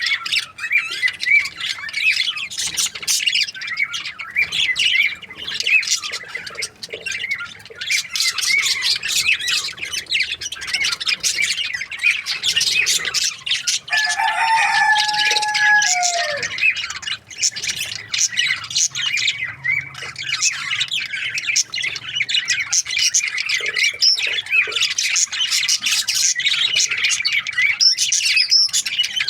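Many budgerigars chirping and chattering continuously, quick high chirps overlapping one another, with one longer, steadier call about halfway through.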